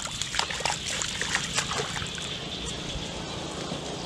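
Splashing in shallow muddy floodwater: a quick run of wet splashes and slaps over the first two seconds, then only a steady hiss.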